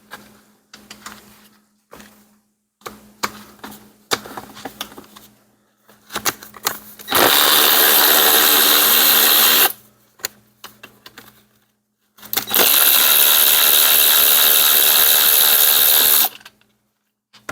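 A power driver running in two long bursts, about two and a half and then four seconds, backing out the bolts of the engine's front timing cover. Clinks and knocks of tools and parts being handled come before and between the bursts.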